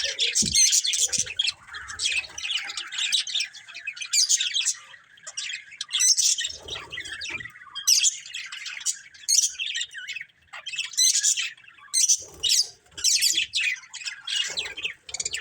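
Budgerigars chirping and squawking in quick, overlapping bursts of chatter, with a few brief low thumps mixed in.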